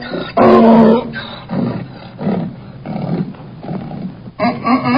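An animal calling: a long, steady pitched call, then a run of shorter, softer, lower calls, and another long pitched call near the end.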